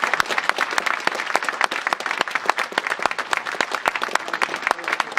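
Audience applauding: many hands clapping in a dense, steady patter for a speaker who has just finished.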